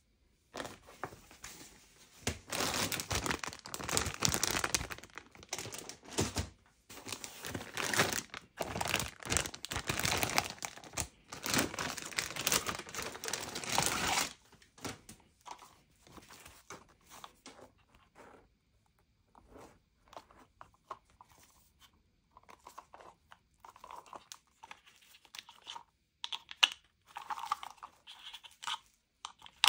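Handling noise: crinkling and rustling for about twelve seconds, then scattered light clicks and taps.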